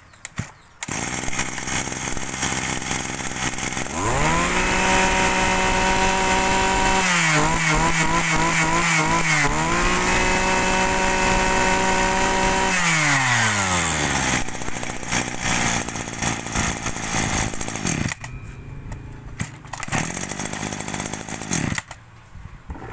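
Robin NB223 two-stroke brush cutter engine catching about a second in and idling. It is revved to a steady high-pitched full throttle, the revs wavering for a couple of seconds in the middle, then drops back to idle. It is cut off near the end.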